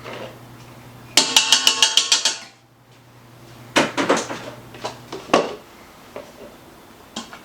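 A quick rattle of about ten metal strikes against a mixing bowl, then a few scattered knocks and clinks of bowls and utensils, over a faint steady hum.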